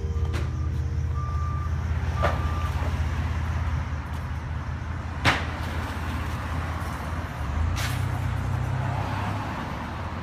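Street traffic dominated by a heavy vehicle's engine running steadily at low pitch, with a few sharp knocks, the loudest about five seconds in.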